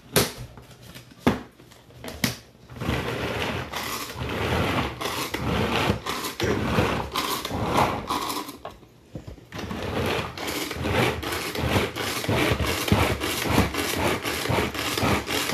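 Pull-cord food chopper chopping onions: quick repeated pulls of the cord spin the blades inside the plastic bowl, a rapid whirring and rattling. The pulls start a couple of seconds in, with a brief pause a little past halfway.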